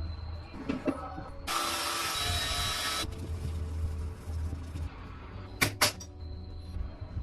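A power tool runs for about a second and a half with a high whine, then stops. Two sharp knocks follow near the end, over a steady low hum.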